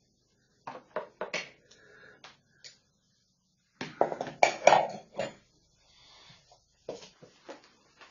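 Metal hand tools clicking and clattering: a few sharp clicks about a second in, a louder metallic clatter around four to five seconds in, and a few more clicks near the end.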